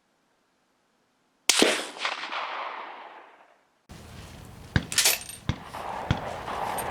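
A single rifle shot about a second and a half in, its report trailing off for about two seconds. A few sharp clicks follow later.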